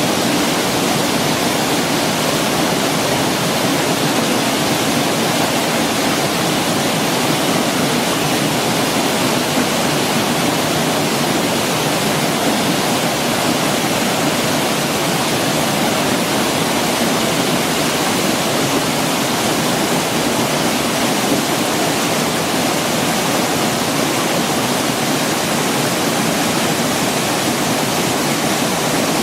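Waterfall: falling water making a loud, steady rushing noise that does not change.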